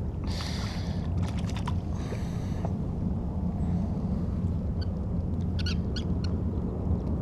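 Steady low hum of a boat motor, with scattered light clicks and two short bursts of hiss in the first few seconds.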